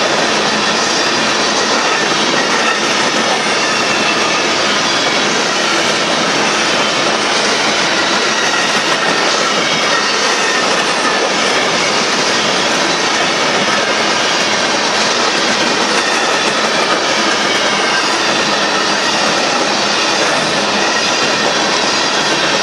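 Union Pacific coal train's hopper cars rolling past close by: a steady, loud noise of steel wheels on the rails, unchanging as the cars go by.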